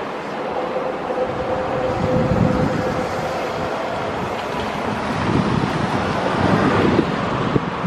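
Keihan electric train running on a steel railway bridge, a faint whine fading over the first few seconds, with wind gusting on the microphone.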